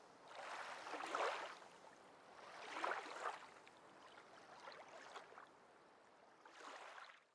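Faint splashing water in swells, louder about a second in, around three seconds in and near the end.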